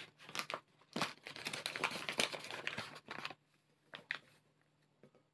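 A flour bag crinkling as it is handled and tipped, with flour pouring into a mixing bowl. The crinkling is dense for about the first three seconds, then gives way to a few faint ticks.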